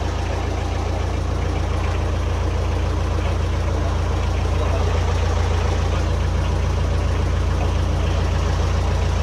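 Boat engine idling steadily, a deep, even drone with a fast regular pulse.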